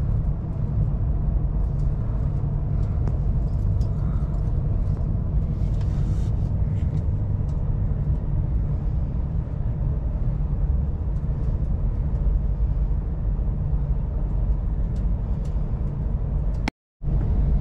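Steady low rumble inside the carriage of an Avanti West Coast Pendolino electric train running along a station platform as it pulls in to stop. The sound cuts out completely for a moment near the end.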